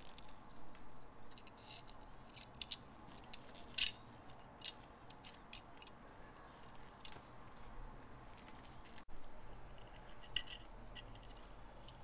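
A scatter of light metallic clicks and clinks from the small metal parts of a brass lighter being handled, the sharpest about four seconds in.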